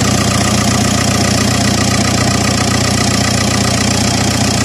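Audi car engine idling steadily, heard close up from the open engine bay.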